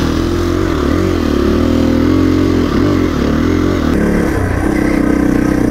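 Off-road motorcycle engines under way on a dirt climb. The KTM 350 EXC-F's single-cylinder four-stroke revs rise and fall with the throttle. About four seconds in, the sound switches abruptly to a Yamaha dirt bike's engine running at a steadier pitch.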